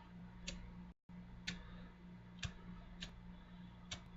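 Faint, irregular metallic clicks from a Zippo lighter being handled and reassembled after filling, five clicks about a second apart, over a steady low hum.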